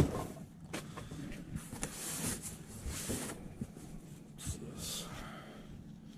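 Rummaging through stored belongings: a sharp knock at the start, then scattered light knocks, clatter and rustling as items are moved and handled.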